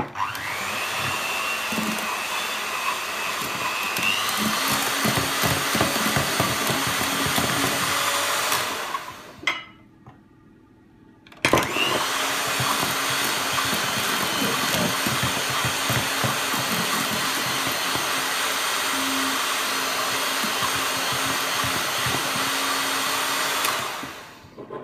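Electric hand mixer running with its beaters in egg-and-sugar batter as flour is beaten in, a steady motor whine that rises in pitch about four seconds in. It stops for about two seconds near the middle, then starts again and runs until just before the end.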